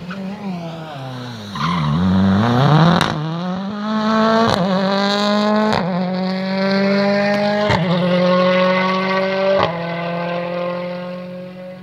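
Ford Fiesta WRC rally car's turbocharged 1.6-litre four-cylinder engine at full stage pace: revs falling and dipping through a corner, then accelerating hard away through five upshifts, each marked by a sharp crack. It fades as the car drives off.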